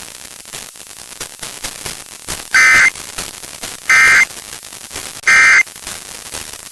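Emergency Alert System end-of-message data tones: three identical short bursts of warbling digital tone, about a second and a half apart, over faint radio hiss, signalling the end of the alert.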